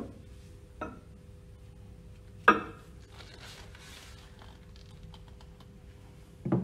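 Metal clicks and knocks as a gloved hand slides a pump's metal seal cover, with the shaft seal in it, off the shaft. A sharp clack about two and a half seconds in is the loudest, with light rustling after it and a knock near the end as the cover is set down on a wooden bench.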